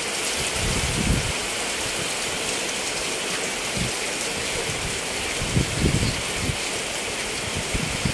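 Heavy tropical rain falling steadily on the street and shop roof, a dense even hiss. A few soft low thumps come through about a second in and again around six seconds.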